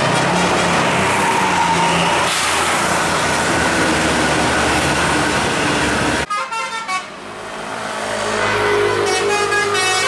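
Bus running past with a blare of horn tones for about six seconds. After an abrupt break, a Basuri telolet bus horn plays a tune of several notes that step in pitch, growing louder.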